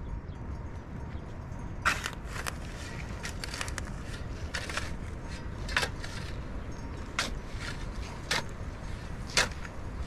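Long-handled shovel digging dry, stony earth: the blade stabs and scrapes into the soil about once a second, each stroke a short, sharp crunch.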